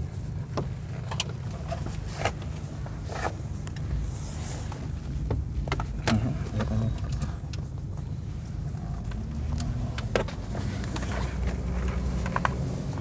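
Rear seat of a BAIC BJ40 L being raised and latched: a string of irregular clicks and knocks from the seat mechanism and plastic trim, over a steady low hum in the car's cabin.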